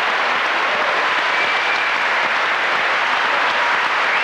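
Large crowd of spectators applauding, a steady dense clatter of clapping.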